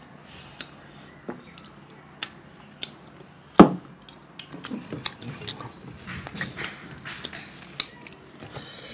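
A drinking glass set down on a wooden table with a single sharp knock about three and a half seconds in, the loudest sound. Around it are close eating sounds: small mouth clicks, then wet lip smacks and finger licking, and a hand working rice on a steel plate.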